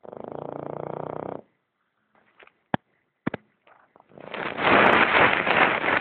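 Boston terrier snoring in its sleep. A buzzing snore lasts about a second and a half, then after a pause comes a louder, noisier snore near the end.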